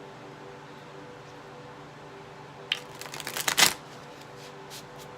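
Tarot cards being shuffled: a quick patter of card clicks lasting about a second, starting a little past the middle, over a faint steady hum.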